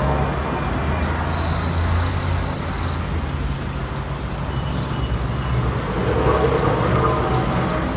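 A low, steady droning hum over outdoor background noise. It is an amateur recording of one of the unexplained 'strange sounds' said to come from the sky.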